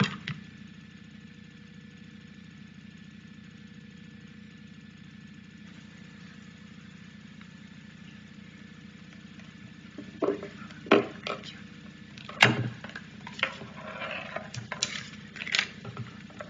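Steady hum of a church sound system, quiet for the first ten seconds, then a handful of short knocks and bumps from people moving and handling things at the pulpit and its microphone.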